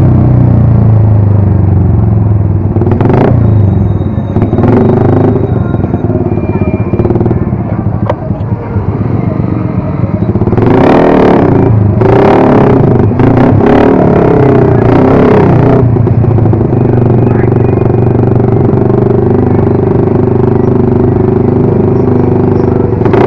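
Motorcycle engine running under way, its pitch rising and falling with the throttle, with several short noisy swells in the middle.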